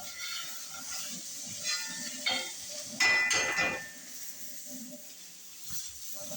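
Food sizzling in a frying pan, with a few metallic clinks and a loud clatter of cookware about three seconds in.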